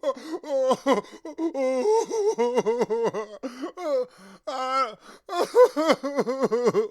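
A man crying hard: a rapid run of short, pitched sobs that rise and fall, with gasping breaths between them.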